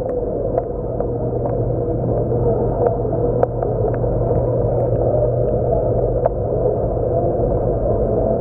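Steady hum and rush of a coral frag tank's pumps and circulating water, heard muffled through a camera under the water, with scattered faint clicks.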